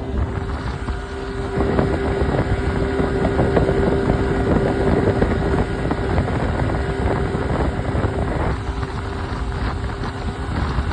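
Boat outboard motor running steadily while the boat is under way, with heavy wind buffeting on the microphone.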